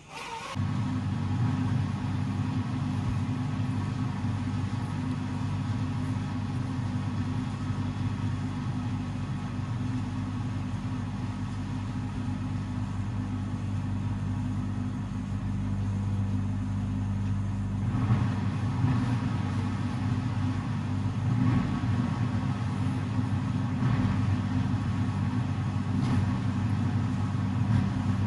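Steady low motor hum of workshop machinery that starts abruptly about half a second in, with a few faint knocks in the second half.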